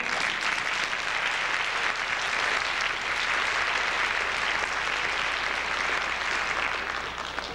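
Audience applauding, a steady dense clapping that fades near the end.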